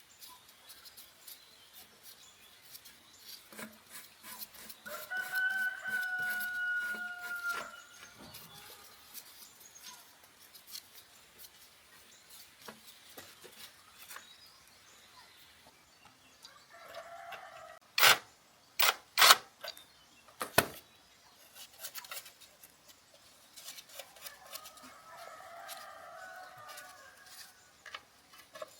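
A rooster crows, one long held call about five seconds in that falls slightly at the end, with fainter calls later on. Small clicks and taps run throughout, and a few sharp knocks come in quick succession about two-thirds of the way through, the loudest sounds here.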